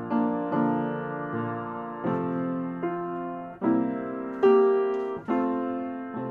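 Slow piano music: sustained chords struck about once a second, each ringing and fading before the next.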